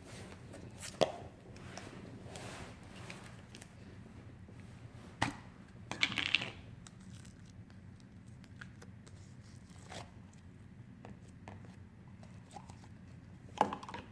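Scattered handling noises: a few sharp clicks and one short crackly burst about six seconds in, over a low steady hum.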